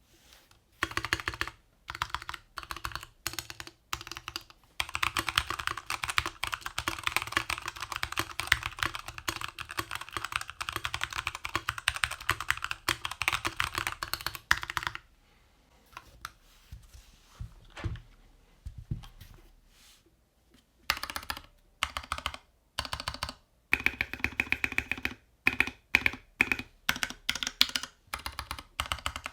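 Typing on a NovelKeys NK65 Entry polycarbonate 65% mechanical keyboard with Gateron Yellow switches. Short bursts of keystrokes lead into a long run of fast typing. A lull with only scattered strokes follows about fifteen seconds in, then more bursts of typing from about twenty seconds in.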